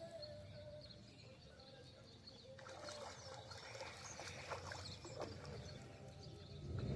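Faint outdoor ambience with scattered distant bird chirps and a few small ticks.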